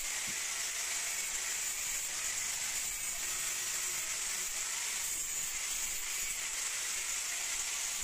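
Angle grinder running against a steel window grille, a steady unbroken hiss.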